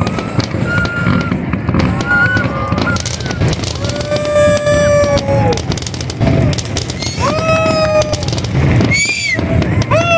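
Aerial fireworks bursting with many sharp bangs and crackles. Over them, people in the crowd whoop long rising-and-falling 'woo' cheers, several times.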